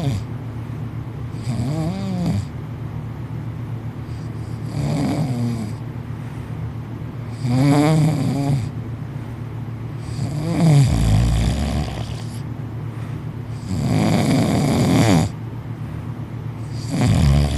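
A man lying on his back in deep sleep, snoring loudly: about six long snores, roughly three seconds apart.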